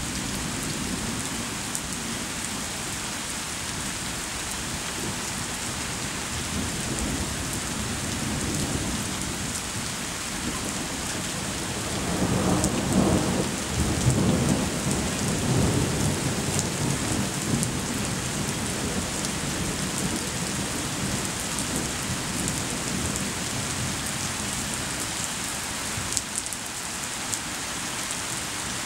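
Steady rain falling on surfaces, with thunder rolling in as a low rumble that swells about twelve seconds in, peaks over the next few seconds and slowly dies away.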